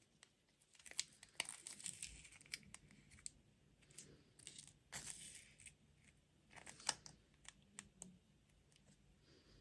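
Faint crinkling and tearing of plastic food packaging, in irregular short crackly bursts with small clicks.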